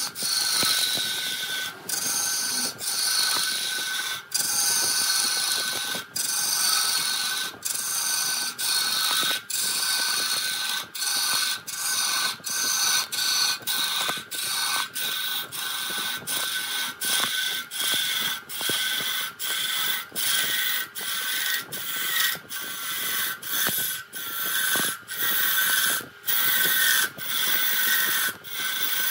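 Wood lathe running with a steady whine while a turning tool cuts the spinning wood in short repeated passes, the cut breaking off briefly about once or twice a second.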